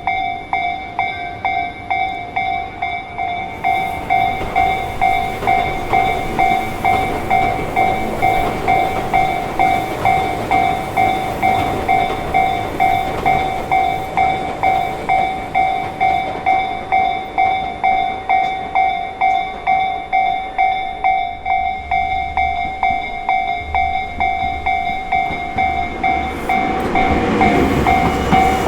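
Japanese railway level-crossing warning bell ringing: an electronic ding repeated quickly and evenly, well under a second apart. In the last few seconds a train's rumble comes up underneath as it approaches the crossing.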